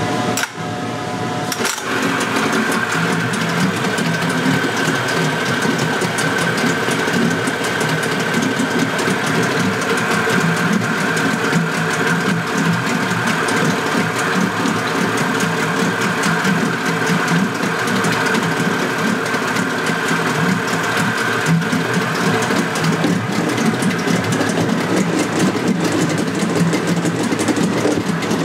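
A 1986 Spirit 20 HP outboard, a rebadged Suzuki two-stroke, running steadily at a fast, even idle with a rapid mechanical clatter.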